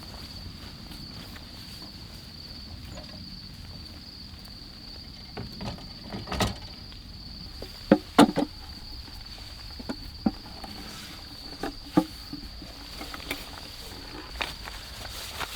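A scattered series of sharp knocks and clatters, like objects being handled and set down, starting about five seconds in and loudest around eight seconds. Under them runs a steady high insect trill, like crickets, over a low outdoor hiss.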